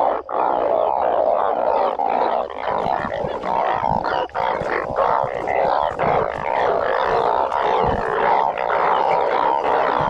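Steady, dense chorus of many frogs calling over one another, with scattered light clicks.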